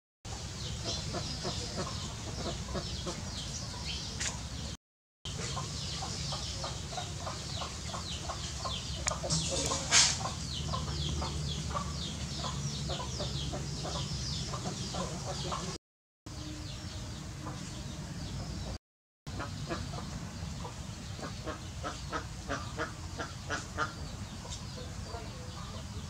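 Domestic hens clucking while foraging, with many short high chirps running alongside. A single sharp, louder sound stands out about ten seconds in, and the sound drops out briefly three times.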